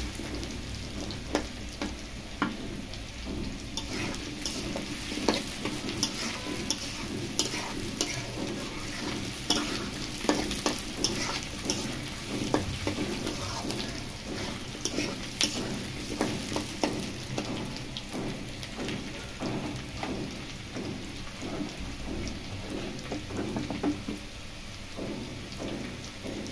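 New potato chunks and sliced onion sizzling in hot oil in a karahi, with a spatula scraping and clicking against the pan as they are stirred and turned. It is a steady frying hiss, broken by frequent short knocks of the spatula.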